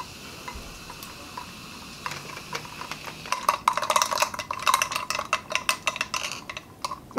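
A glass of iced lemon-lime soda held close to the microphone, fizzing and crackling, with ice clinking against the glass. From about three seconds in it becomes a dense run of small, irregular pops and clicks.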